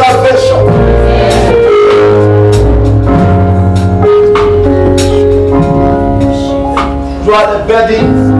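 Worship music: held chords over a steady bass line, with regular drum hits.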